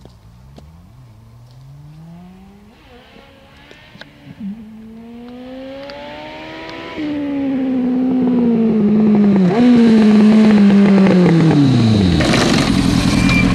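Yamaha R1 sportbike's inline-four engine accelerating toward the listener, its note climbing and breaking at two upshifts and growing louder. The throttle then closes and the note winds down through a downshift, settling to a low idle near the end as the bike comes to a stop close by.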